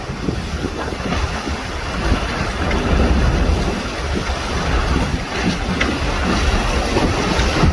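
Strong wind buffeting the microphone on a small boat at sea in rough water, with the rush of waves beneath. The gusting west-monsoon wind is loud and continuous, heaviest in the low rumble.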